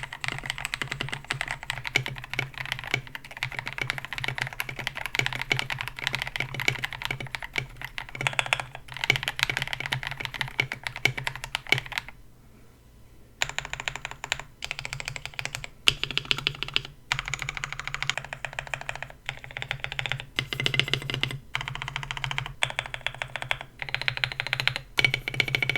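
Mechanical keyboard typing on a KBD67 Lite with KTT Mint linear switches and a polycarbonate plate: steady fast keystrokes, a short pause about halfway, then typing in short bursts of about a second with brief gaps.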